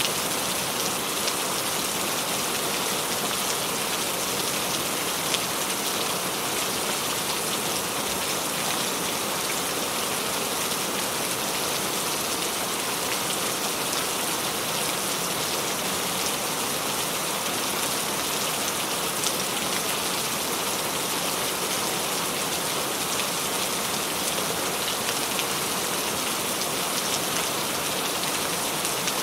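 Steady rain falling on a surface, an even hiss with fine scattered drop patter that holds level throughout.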